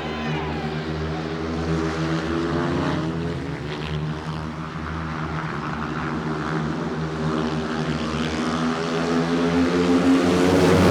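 An engine running at a nearly steady pitch, a continuous drone that grows louder toward the end.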